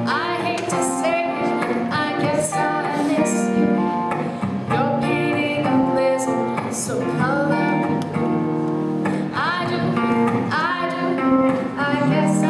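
A song: singing over strummed acoustic guitar.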